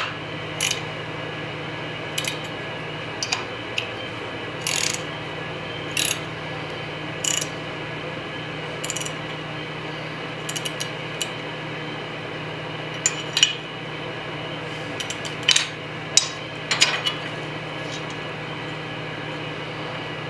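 A steel wrench clinking on bolts and the steel plates of a belt grinder's platen assembly as the bolts are turned. About fifteen short metallic clicks come at irregular intervals over a steady hum.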